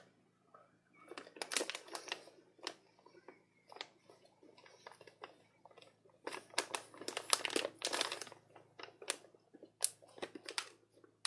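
Plastic snack bag crinkling as it is handled, in two main bouts of dense crackling with scattered clicks between.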